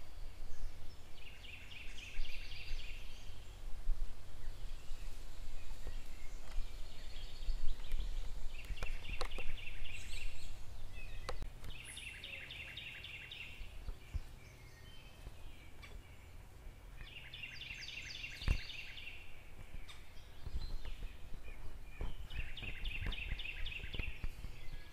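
A bird's rapid rattling call, given five times, each about a second long and several seconds apart, over a low steady rumble, with a few sharp knocks.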